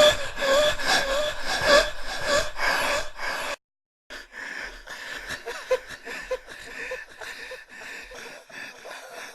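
A person gasping for breath: loud, rapid, voiced gasps about twice a second. These stop dead a little over three seconds in. After half a second of silence, quieter, irregular panting breaths with small catches in the voice follow.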